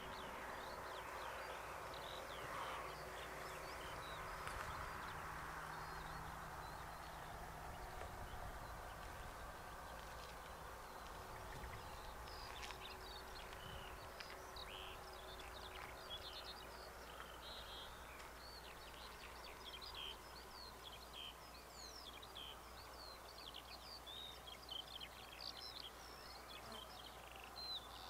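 Several wild birds singing and chirping outdoors in short, overlapping calls, growing busier about halfway through. Under them is a faint steady background rush that fades over the first third.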